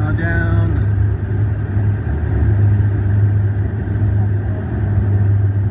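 Airliner cabin noise: the steady low drone of the engines and rushing airflow, heard from inside the cabin during the landing.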